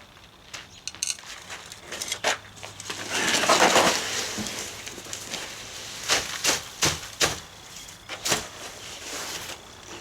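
Bagged concrete mix being emptied and worked by hand: a gritty rush about three seconds in, then scattered scrapes and knocks.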